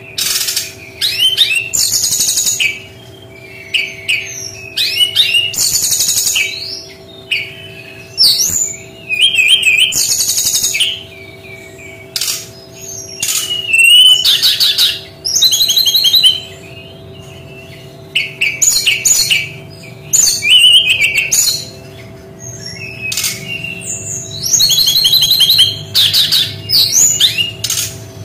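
Brown-chested jungle flycatcher singing: a long run of loud, varied high phrases of rapid trills and chirps, each a second or less, repeated with short pauses, over a faint steady hum.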